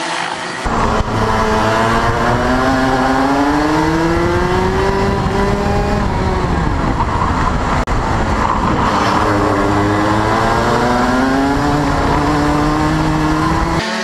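Racing kart engine heard from on board the kart. It starts about a second in, and its revs climb, drop, then climb again.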